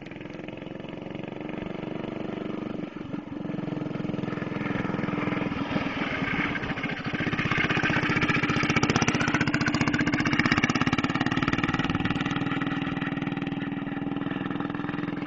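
Go-kart's small engine running as the kart drives up, passes close and pulls away, loudest as it goes by about eight to eleven seconds in, then easing off.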